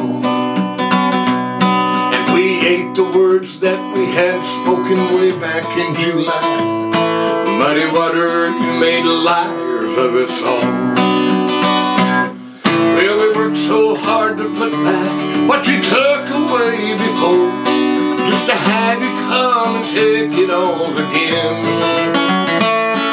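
Acoustic guitar music, dropping out briefly about halfway through.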